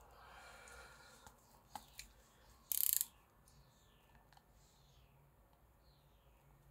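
Cellophane shrink wrap on a CD album crinkling and rustling as it is handled, with a few light clicks and one short, loud crinkle about three seconds in.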